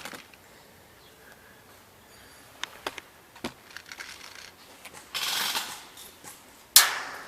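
A few sharp clicks and a short rustle, then a single sharp crack near the end that dies away quickly.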